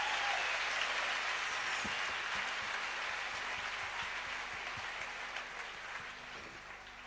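Congregation applauding. The clapping is strongest at first and dies away over the last couple of seconds.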